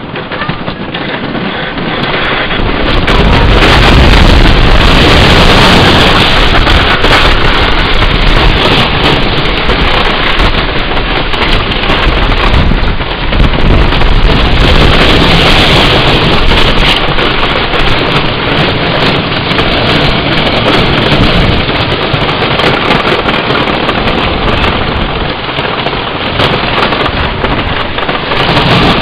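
Wooden roller coaster train running down the drop and along its wooden track, heard from the front seat: a loud, continuous rush of wind and clattering rattle of the train on the track. It swells sharply about three seconds in as the train picks up speed off the lift hill.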